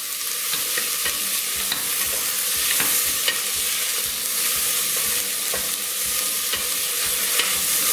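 Chopped onion, yellow pepper and green chilli frying in olive oil in a stainless steel saucepan while being stirred with a wooden spoon: a steady sizzling hiss with small scrapes and taps of the spoon against the pan.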